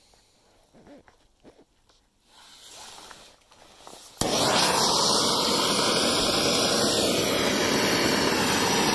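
Faint handling knocks, then about four seconds in a loud, steady rushing noise starts abruptly: a gas torch flame running, heating a crucible of recovered silver powder.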